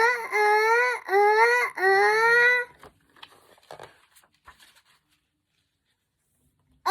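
A high voice crying in three long wails one after another, then a few faint clicks before another wail starts at the very end.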